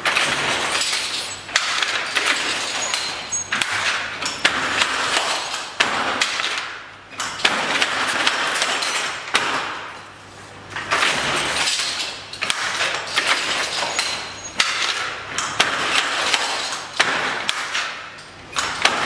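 Hand jacquard loom at work weaving silk velvet: repeated clacking and clinking of the loom's wooden and metal parts and the weaver's tools. It comes in stretches a few seconds apart, with sharp knocks.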